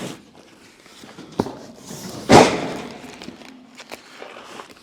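A heavy boxed doghouse handled and set down, with one loud thud a little over two seconds in, a smaller knock shortly before it and a few light knocks and scuffs around them.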